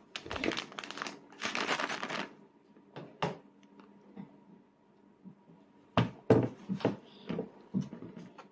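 Mealtime handling noises at a table: a rustling crinkle in the first two seconds, then a quiet stretch, then a cluster of sharp knocks about six to seven seconds in as a child's plastic sippy cup and tableware are set down and handled on the tabletop.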